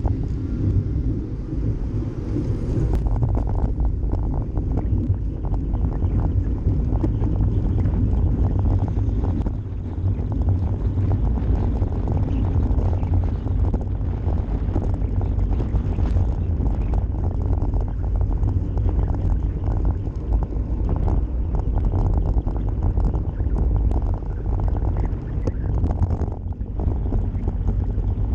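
Wind rushing over the microphone of a bicycle-mounted camera during a fast downhill ride: a steady low rumble, with frequent small knocks and rattles from the bike jolting over the road.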